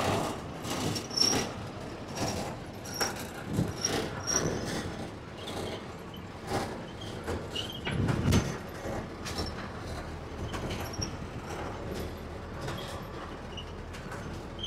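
Lorry cab rattling and knocking as the truck rolls slowly over a rough dirt track, with a louder thump about eight seconds in.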